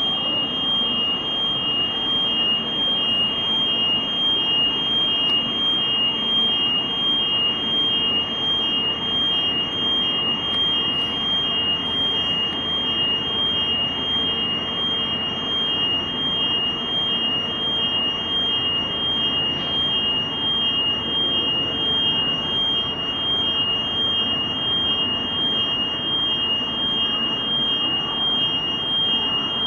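Jet airliner engine noise heard through terminal window glass: a steady rumble under a high, even whine.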